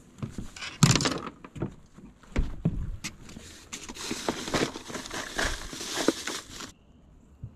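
Tree branches and leaves rustling, with scattered clicks and knocks, as they are handled to free snagged fishing jigs. A longer stretch of dense rustling in the second half cuts off suddenly.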